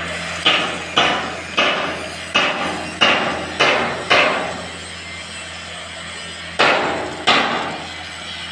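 Hammer blows, nine in all: seven in quick succession over about four seconds, then a pause and two more, each with a short ringing tail, over a steady low hum.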